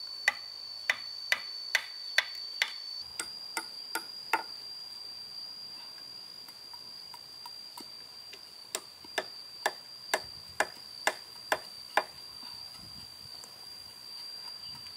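Hand tool knocking on the log frame of the shelter roof: two runs of sharp, evenly spaced strikes, about two a second, ten and then eight, with a pause between. Under them runs a steady high-pitched insect drone.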